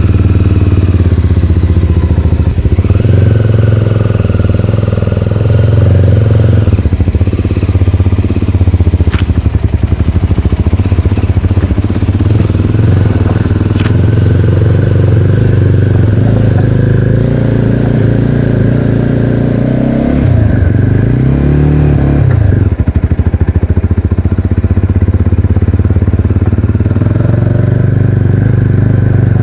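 Voge 300DS motorcycle's 292 cc single-cylinder engine running under way, recorded close up. Its pitch rises and falls several times with the throttle, most clearly about two thirds of the way in. Two sharp clicks cut through the engine sound in the first half.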